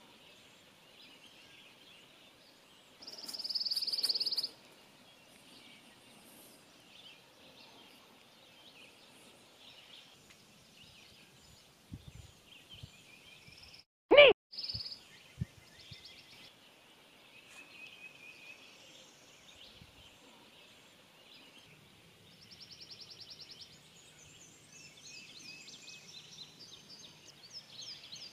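Woodland birds singing in a steady scatter of high chirps and trills. About three seconds in, a louder high trill lasts about a second and a half. About fourteen seconds in comes one brief, sharp, loud sound.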